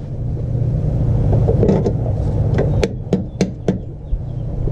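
About five sharp taps as the spring-loaded retaining clip of a clutch line is tapped into its fitting until it seats, over a steady low rumble.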